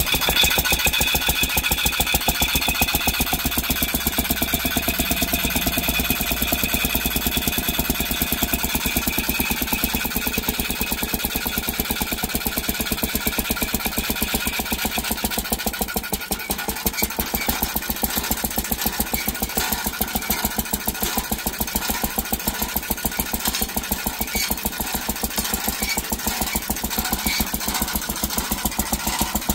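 1926 Wade drag saw's single-cylinder engine running steadily with rapid, even firing strokes, working the long crosscut blade back and forth with nothing to cut.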